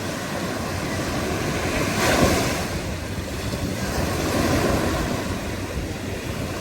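Ocean surf: waves breaking and washing in as a steady rush, swelling with a louder wave about two seconds in and a softer one a couple of seconds later.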